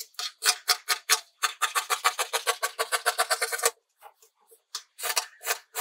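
Scissors cutting knit fabric: a quick run of crisp snips, about eight a second. A pause of about a second follows, then more snips near the end.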